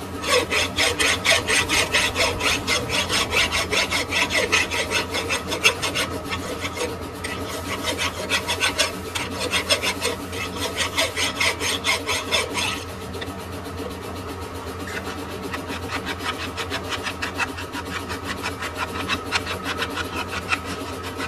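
Rapid, rhythmic rasping strokes of a tool working metal, over a steady machine hum. Harsh and bright for about the first thirteen seconds, then lighter.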